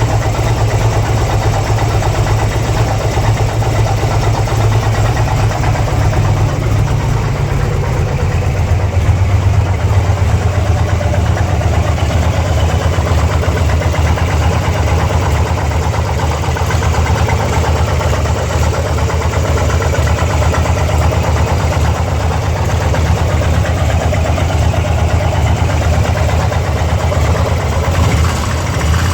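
2002 Harley-Davidson Ultra's fuel-injected Twin Cam V-twin engine idling steadily, carrying an unidentified engine noise the owner cannot trace.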